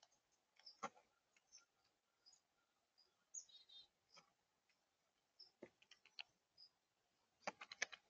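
Blue jay feeding on a seed tray: sharp irregular clicks and taps of its beak on seed and the feeder, with a quick run of several near the end. Faint short high bird chirps come in between.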